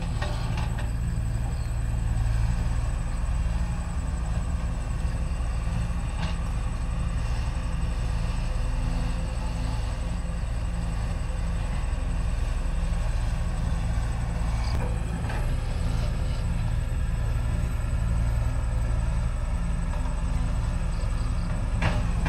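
Steady low rumble, with a faint, steady high-pitched whine above it.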